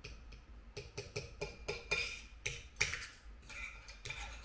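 Knife and fork clicking and scraping against a plate while food is cut and eaten: an irregular run of small sharp clicks.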